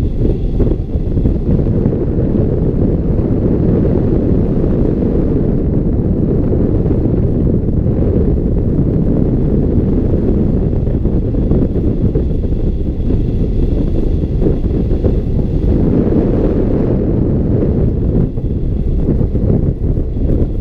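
Airflow buffeting the microphone of a hang glider's wing-mounted camera in flight: a steady, loud, low wind rumble.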